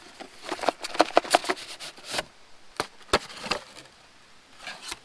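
Cardboard box being torn open: a quick run of crackling rips in the first two seconds, a sharp knock about three seconds in, then a softer rustle of the cardboard flaps.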